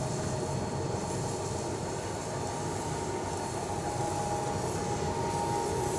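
Screw-type sawdust briquette machine running under load, its electric motor and screw press giving a steady mechanical rumble with a faint constant whine as it extrudes a hot briquette rod.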